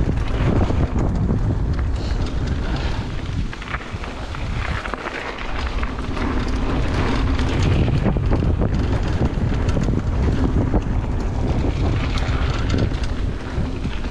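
Aluminium hardtail mountain bike riding fast down a dirt trail: wind buffeting the microphone and tyre noise, with frequent knocks and rattles from the frame. The rider takes the banging for the internally routed dropper-post cable knocking inside the frame tubes.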